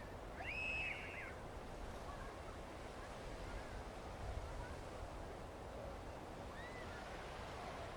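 Steady beach ambience of wind and sea noise, with a short bird call about half a second in and a fainter one near the end.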